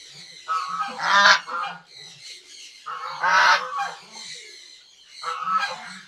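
White domestic goose honking: three harsh honks, about two seconds apart.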